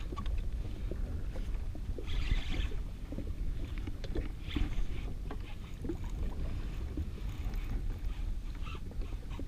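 Small waves lapping and slapping against the hull of an anchored jet ski, with wind rumbling on the microphone and scattered small knocks. There is a short hiss about two seconds in.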